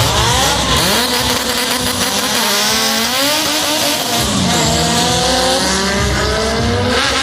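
Drag cars, one a Honda Civic coupe, launching and accelerating hard down the strip. Engine pitch climbs and drops back at gear shifts about two and a half and four seconds in, and again near the end.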